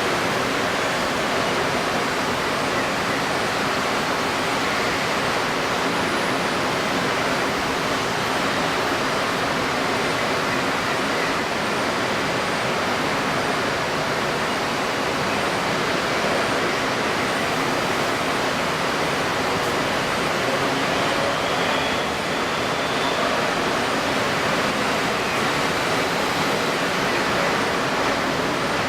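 Steady rushing noise of strong pre-typhoon wind and wind-stirred water, even throughout with no distinct events.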